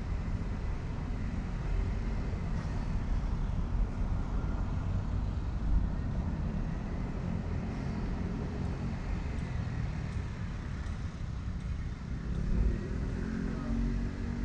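Low, steady rumble of a small boat engine running slowly, with an engine note rising in pitch near the end.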